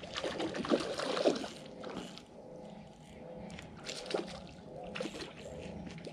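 Hooked rainbow trout splashing and thrashing at the surface close to shore as it is reeled in. The splashes are strongest in the first second and a half, with a few more later, over a faint steady hum.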